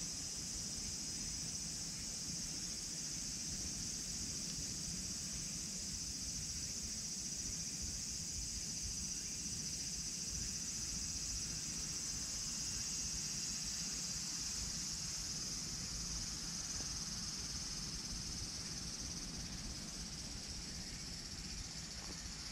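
Steady high-pitched chorus of insects that does not break, with a low rumble underneath.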